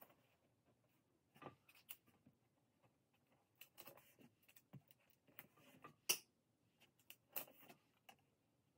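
Faint scattered rustling and light taps of paper and adhesive tape as pattern strips are taped down and pressed flat, with one sharper click about six seconds in.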